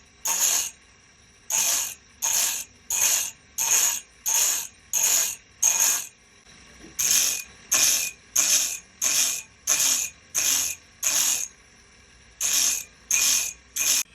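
Repeated short, bright rasping strokes from a hand tool or mechanism, about one and a half a second, in runs broken by short pauses.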